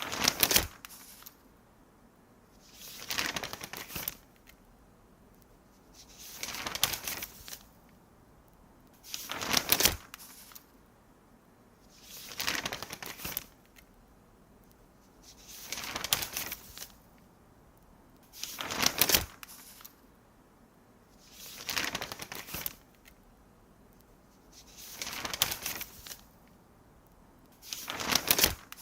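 Newspaper pages being turned one after another: about ten separate crisp paper rustles, each about a second long, coming roughly every three seconds with quiet between.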